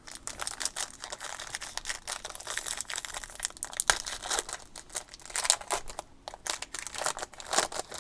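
Crinkling and tearing of a trading-card pack's foil wrapper as it is ripped open and handled, an irregular run of sharp crackles.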